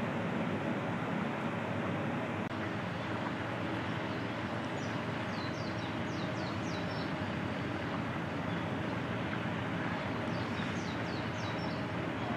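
Steady outdoor background rumble and hiss, with two short runs of quick high bird chirps, about five seconds in and again near eleven seconds.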